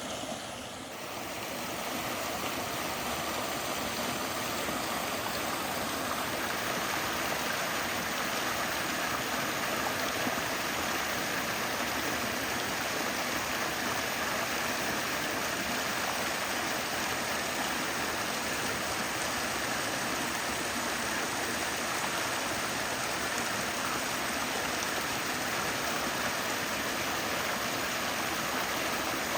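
Small mountain waterfall rushing steadily over rocks, a continuous even roar of falling water.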